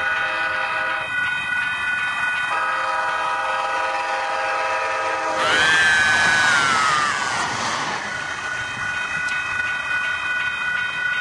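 A light rail train passes close by about five seconds in: a louder rush with its horn sounding and falling in pitch as it goes past. Under it runs a steady sustained chord of high tones whose lower notes change a couple of times.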